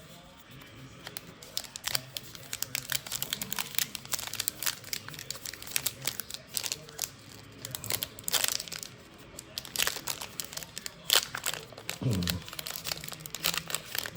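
Plastic trading-card wrapper crinkling and crackling in irregular snaps as it is handled and pulled open, with a faint tearing sound.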